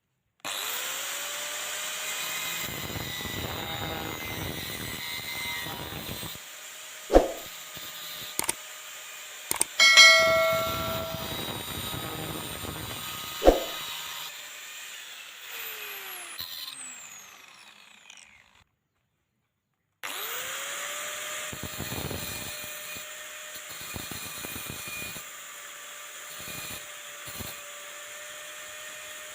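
Electric grinder spinning up and grinding the rusted steel of an old rubber tapping knife to shape, with a few sharp knocks as the blade is worked. It winds down and stops about two-thirds of the way through, then starts again, runs steadily and winds down near the end.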